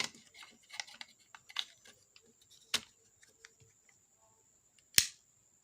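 Light clicks and taps of handling a repaired electric kettle's plug and cord, then one sharp, loud click about five seconds in as the kettle is plugged in to be tested.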